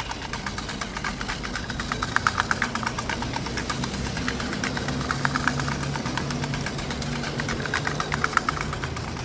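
An engine running with a fast, rattling clatter of knocks over a steady low hum.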